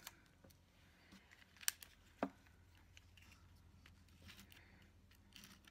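Faint handling of paper and a sticker strip on a planner page, with two short, sharp clicks a little under two seconds and just over two seconds in.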